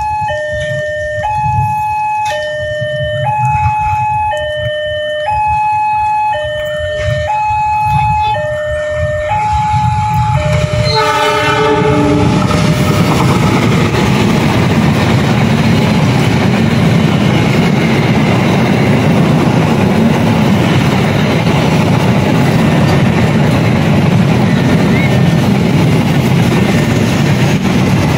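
Level-crossing warning alarm sounding an alternating two-tone signal, then a brief train horn about eleven seconds in. A KAI CC 206 diesel-electric locomotive and its coaches then pass close by with a loud steady rumble and wheel noise on the rails.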